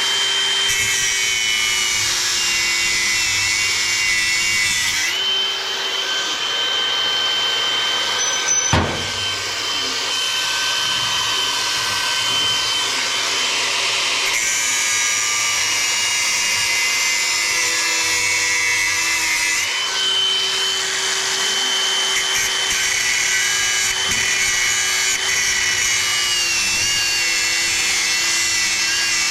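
Metal lathe running, turning down a steel pin built up with weld: a steady motor whine over the hiss of the cut, its pitch dipping a little now and then as the cut loads it. A single sharp knock comes about nine seconds in.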